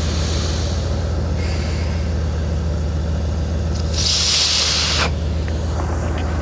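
Engine idling steadily. About four seconds in there is a sharp hiss lasting about a second.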